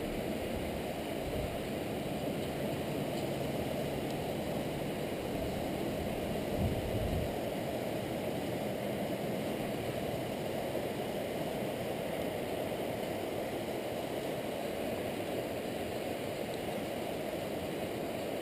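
Steady, muffled rushing of a river flowing over shallow riffles.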